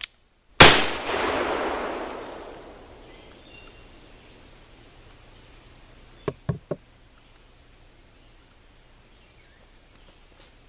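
A single shot from a .44 Colt 1847 Walker cap-and-ball black powder revolver about half a second in, with a long echo dying away over about two seconds. Three faint knocks follow close together about six seconds in.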